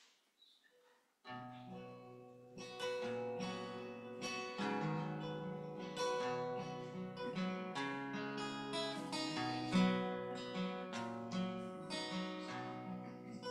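Acoustic guitar strumming the introduction to a hymn. It starts quietly about a second in, after a moment of near silence, and grows louder a second or so later.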